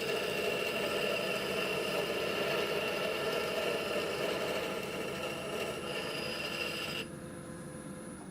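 Taig benchtop lathe running steadily with a high whine while a boring bar cuts the bore of a hickory bushing. The sound drops away sharply about seven seconds in.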